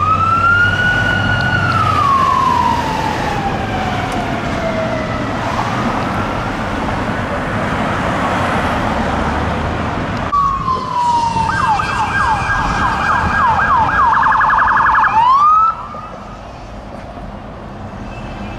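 A fire battalion chief's Ford Expedition's electronic siren wailing: it sweeps up, then slowly winds down and fades, with a fainter wail after it. Then a police Chevrolet Tahoe's electronic siren wails down and switches to a fast yelp that speeds up further. It ends in a quick upward chirp and cuts off about two-thirds of the way through, leaving traffic noise.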